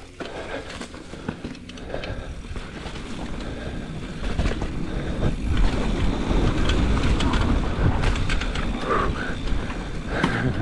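Wind rushing over the microphone along with a mountain bike's tyres running through loose, sandy trail, with scattered knocks and rattles from the bike. It grows louder about four seconds in.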